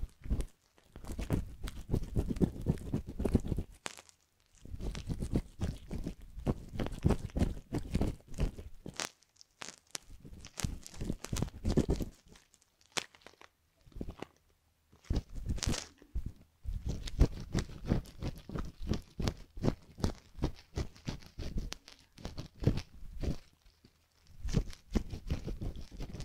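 A metal ear hook and tweezers scrape and pick at a hardened crust inside the canal of a silicone ear model, close to the microphone. The result is dense, crunchy crackling in bursts of a few seconds with short pauses between them.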